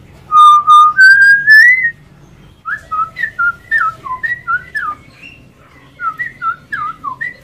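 A hill myna gives three loud whistled notes, each higher than the last. After a short pause a straw-headed bulbul sings two phrases of fast, bubbling, warbled notes.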